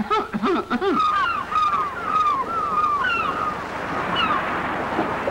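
Seagulls calling, a quick run of short falling cries, over the rush of ocean surf, which swells near the end. A few short, low vocal sounds come first.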